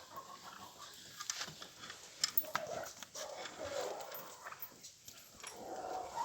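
Animal calls: a few drawn-out cries, one in the middle and another near the end, with scattered sharp clicks and knocks.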